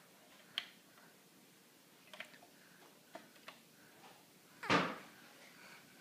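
Wall toggle light switches being flipped by a small child's hand, giving several sharp clicks spread out with pauses between, and one louder, longer noise about three-quarters of the way through.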